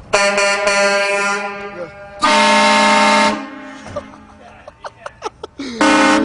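Compressed-air train horns blasting three times: a first blast right at the start that fades over about a second and a half, a louder blast about two seconds in lasting about a second, and a third starting near the end that slides up in pitch as it opens. Each blast sounds as several steady notes together.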